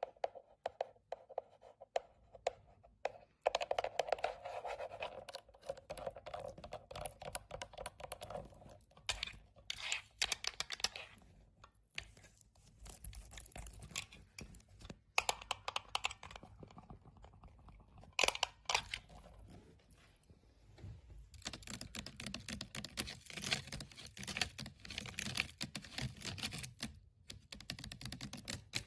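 Long decorated nails tapping and scratching on objects: quick strings of clicking taps and scratches on the plastic control panel of a tattoo power supply, then scratching on a fabric strap, and near the end on a plastic laundry basket.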